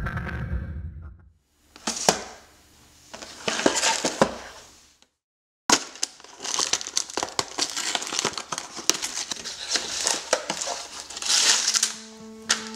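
Hands opening a small cardboard Lego set box and handling the plastic polybags of bricks: crinkling plastic with many small clicks and scrapes. The tail of a short intro sound fades out in the first second.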